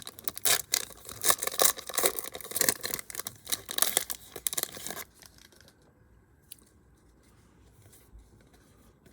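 A 2019 Donruss baseball card pack's wrapper being torn open and crinkled, a dense crackle of sharp clicks that stops about five seconds in, followed by a few faint clicks.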